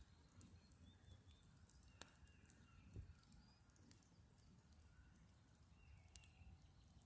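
Near silence: a scrap-wood fire crackling faintly, with a couple of sharper pops, one about two seconds in and one near the end, and a few faint bird chirps.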